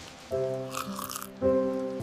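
Soft background music with sustained, held notes, the chord changing about one and a half seconds in, and a brief soft noise about a second in.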